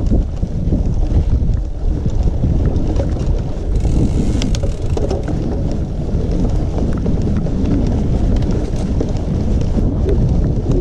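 Wind buffeting the microphone over the rumble and rattle of a mountain bike riding along a trail, with a few sharp clicks about four seconds in.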